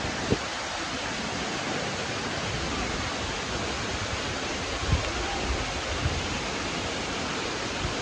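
Steady rushing of a waterfall, many thin streams pouring down a limestone cliff into a plunge pool, with a couple of brief low bumps near the start and about five seconds in.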